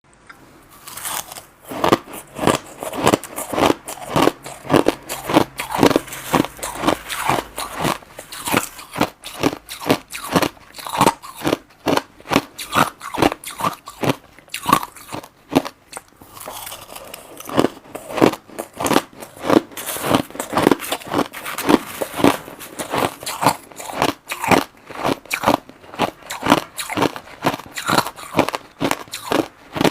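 Crushed ice being bitten and chewed, a steady run of sharp crunches about two or three a second, easing off briefly about halfway through.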